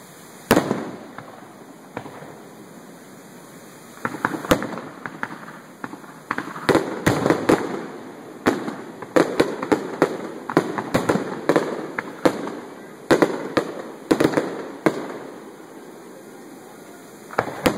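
Aerial fireworks shells bursting in sharp bangs: one about half a second in, then a rapid run of many bangs with crackling between them for about ten seconds, and one more near the end.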